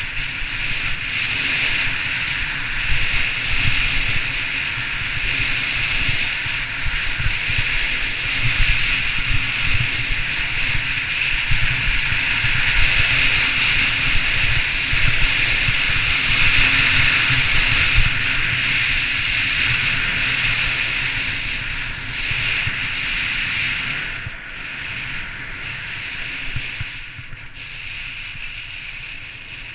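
Fischer RC4 World Cup race skis carving down hard-packed groomed snow, a steady scraping hiss, with wind buffeting the microphone. It fades over the last few seconds as the skier slows.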